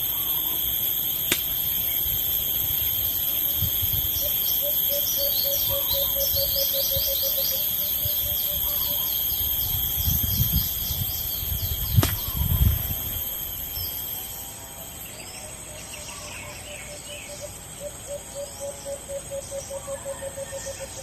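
Birds chirping over a steady high drone of insects, with twice a low, quick run of repeated notes from an alimokon dove. A few low thumps and a sharp click come about halfway through.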